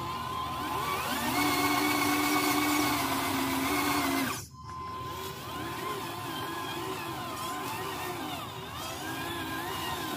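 Electric motor and gearbox of a radio-controlled log truck whining as it drives through mud. The pitch holds steady for a few seconds, breaks off briefly about four and a half seconds in, then rises and falls over and over with the throttle.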